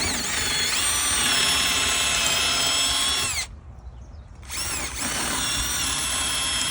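Power drill boring a hole for a lag bolt with a larger bit, running at a steady speed with a high whine. It winds down and stops about three and a half seconds in, then starts again a second later.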